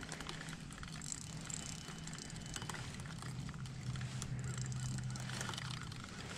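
Spinning reel being cranked while a fish is reeled in, with rapid clicking from the reel and a low steady hum that grows stronger about halfway through and stops shortly before the end.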